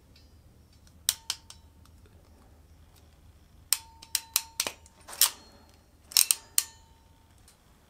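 Hand crimping tool clicking as its jaws close on open-barrel wire terminals: two sharp metallic clicks about a second in, a quick run of about six clicks near the middle, and a few more around two thirds through, some leaving a short ring.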